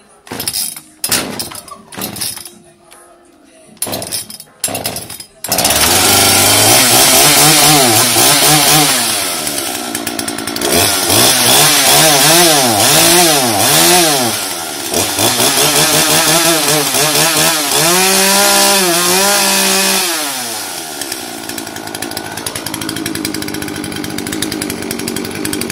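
Petrol chainsaw engine firing in a few short bursts, then running continuously from about five seconds in. It is revved up and down repeatedly, then drops to a steadier, quieter idle for the last few seconds.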